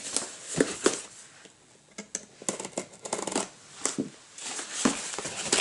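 Packing tape being worked off a cardboard mailing box: irregular scrapes, rips and crinkles, with a quiet pause a little over a second in and a denser run of scraping between about two and three and a half seconds.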